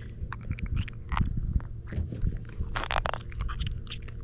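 Close handling of a freshly caught northern puffer and fishing line while unhooking it: irregular crunching clicks, with a short rasping buzz about three seconds in.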